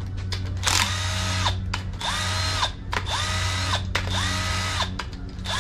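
Cordless impact tool zipping out the LS 5.3's rocker arm bolts in four short bursts about a second apart, each run winding up, holding briefly and winding down.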